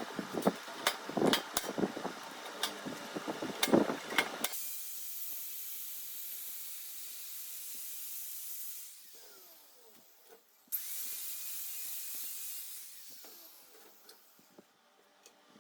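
Irregular sharp knocks and clicks of hand tool work for about four seconds, then a steady high hiss in two long stretches with a short break between them, fading near the end.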